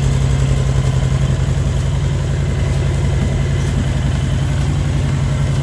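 2018 Honda Fury's V-twin engine idling steadily, with an even low pulse.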